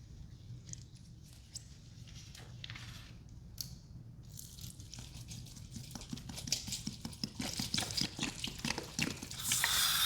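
Cleaning foam fizzing and crackling on wet sponges, at first as faint scattered pops. About four seconds in, Pinalen cleaner is poured on, and the crackling turns dense and grows louder, with a hiss building near the end.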